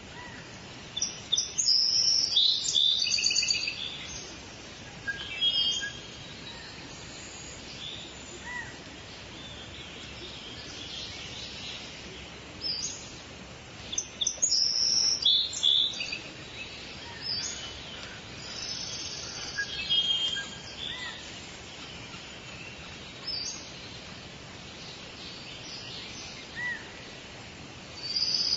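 Forest birds singing and calling in bursts of high chirps and trills, with the loudest flurry about a second in and more around the middle and the end, over a steady background hiss.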